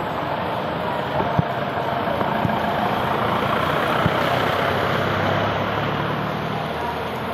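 Heavy rain pouring steadily, with a vehicle engine running under it and a few short knocks.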